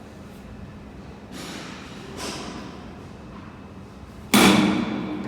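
Strikes on a taiko drum: a softer hit about a second in, another about two seconds in, then a loud hit with a ringing, decaying tone about four seconds in.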